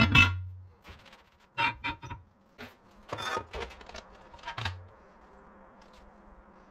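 Steel plates and a metal rod being handled on a workbench: a string of metal clanks, knocks and scrapes, the loudest at the start, with four or so clusters over about five seconds. After that only a faint steady hum remains.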